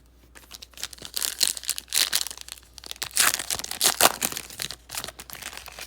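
Plastic wrapper of a football card pack crinkling and tearing as the pack is ripped open, in a run of irregular crackles that are loudest around the middle.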